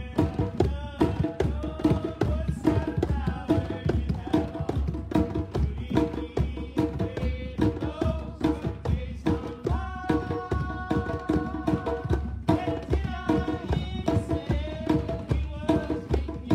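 A drum circle of several hand drums, djembes among them, struck with bare hands together in a steady, fast interlocking rhythm. About ten seconds in, a steady held tone sounds over the drumming for about two seconds.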